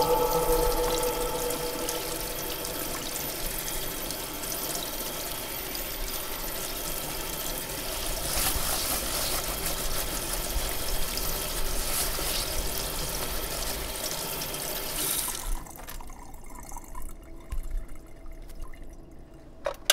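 Kitchen tap running into a stainless-steel sink while a plastic colander is scrubbed with a sponge under it. The water stops suddenly about fifteen seconds in, leaving a few quieter knocks of the colander being handled.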